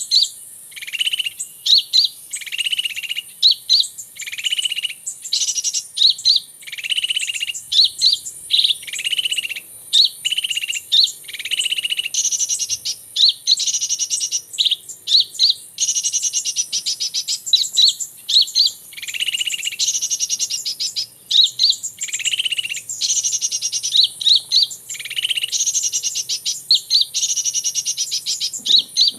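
Small birds chirping and twittering without pause: a short high note about once a second alternates with fast high trills.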